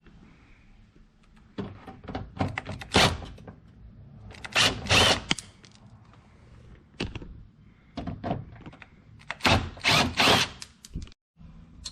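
Scattered clicks and knocks of a hand tool and car trim parts being handled while Torx screws are removed from a taillight and rear bumper. The loudest knocks come about 3, 5 and 10 seconds in.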